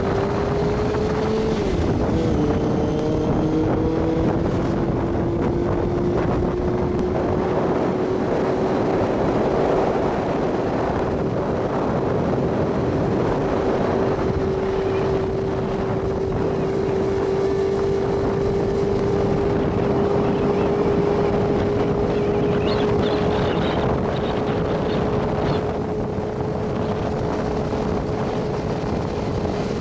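Motorcycle engine running on the road, filmed from the bike. Its pitch drops at a gear change about two seconds in, then holds nearly steady and climbs slowly. Wind rushes over the microphone throughout.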